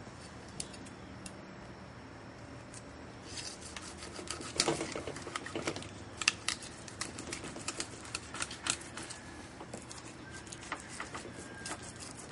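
Fillet knife cutting down along a small largemouth bass's backbone on a cutting board: a run of irregular sharp clicks and scrapes begins about three seconds in and keeps going.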